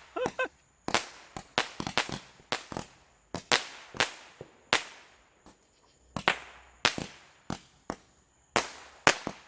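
Irregular series of sharp firework and firecracker bangs, roughly one to three a second, some loud with a short echoing tail and others fainter and farther off.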